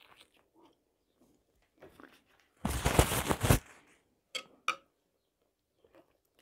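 Close-up chewing of a bite of fried pastry, with a loud burst of mouth and crunching noise lasting about a second, about three seconds in. About a second later come two short clinks, a metal spoon against a glass bowl.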